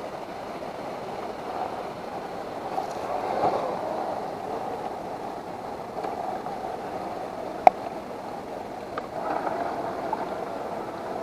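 Axial SCX10 1:10 RC crawler's electric motor and gear drivetrain running steadily as it drives, with one sharp click about two-thirds of the way through.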